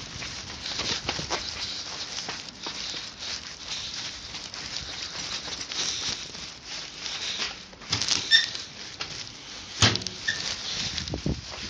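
Footsteps of a person walking over pavement and concrete, with a short high squeak about eight seconds in and a sharp click near the end as a door is taken hold of by hand.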